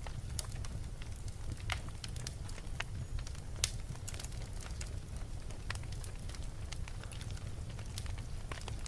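Wood fire burning in a fireplace: irregular sharp crackles and pops over a steady low rumble of the flames, with one louder pop about three and a half seconds in.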